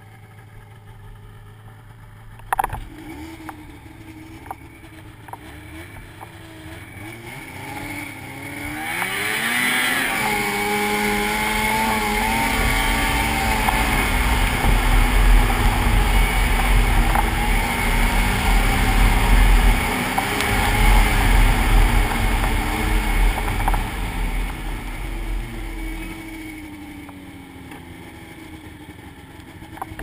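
Snowmobile engine heard from the sled itself: running low at first, with a sharp knock a couple of seconds in, then revving up and running loud and steady at trail speed, and winding down as the sled slows near the end.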